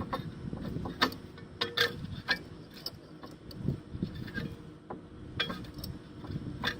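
Irregular sharp metal clicks and taps from work at a disc brake caliper, as a C-clamp is used to push the caliper piston back in.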